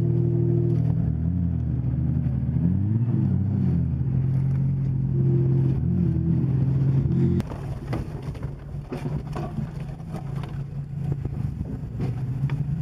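SUV engine revving hard under load, its pitch rising and falling, while a stuck Ford Explorer is pulled out on a tow strap. About seven seconds in, the sound cuts to a quieter engine hum heard inside a vehicle's cabin on a rough trail, with scattered knocks and rattles.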